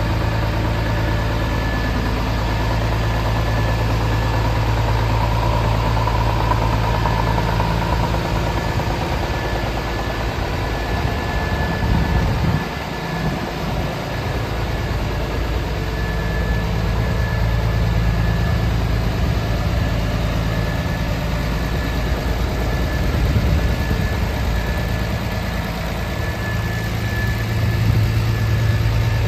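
Scania S500 truck's diesel engine idling steadily, a deep even hum that turns briefly fainter about halfway through.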